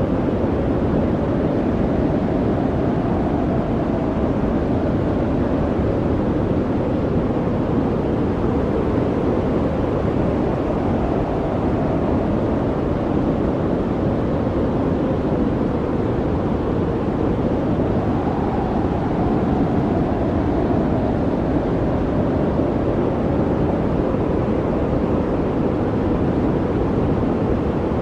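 Sandstorm sound effect: strong wind rushing steadily, with a low howl that slowly rises and falls, swelling most about two-thirds of the way through.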